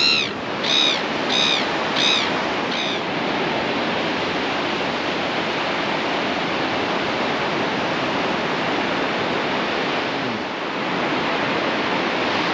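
Steady rush of surf breaking on a sandy beach. In the first three seconds a bird gives a series of about five short, high calls that rise and fall.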